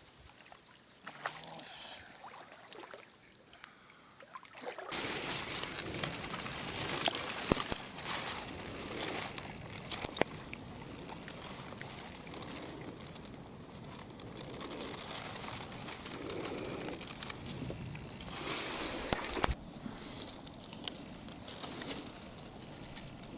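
Mountain stream water rushing and splashing. It comes in suddenly about five seconds in after a quieter start, with scattered sharp clicks and knocks over it.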